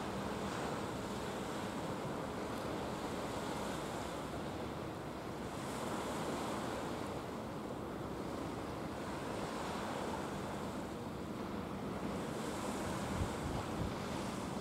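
Wind rushing over the microphone and the wash of waves, with a faint steady low hum from the passing pusher tug and barge's engine that fades in and out. A couple of short wind thumps hit the microphone near the end.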